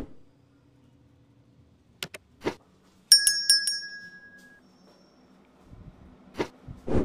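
A couple of sharp mouse-click sound effects, then a small bell struck about four times in quick succession and ringing out over a second or so: the notification-bell sound effect of a YouTube subscribe-button animation.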